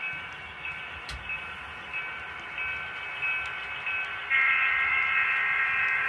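The model diesel locomotive's sound decoder plays a diesel train soundtrack, with ringing chime-like tones that come and go. A loud, sustained multi-tone horn blast starts about four seconds in.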